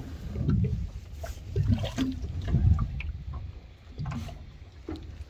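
Water splashing and slapping against a small boat's hull in uneven bursts, with scattered knocks and handling noise.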